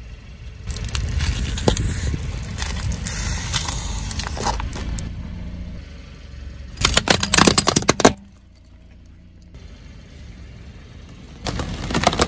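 A car tyre rolling slowly over plastic jars of Lotte Xylitol chewing gum, crushing them with a long stretch of crunching and crackling over a low rumble. Then comes a short burst of sharp cracks as it crushes hollow plastic balls in a mesh bag. Near the end it starts pressing on a bundle of twisted modelling balloons, with a rising crackle.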